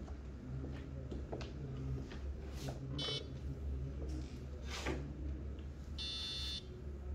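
A single sharp click of a billiard cue striking the cue ball, about five seconds in, over a steady low room hum. Two electronic beeps are also heard: a brief one about three seconds in, and a longer one of about half a second shortly after the stroke.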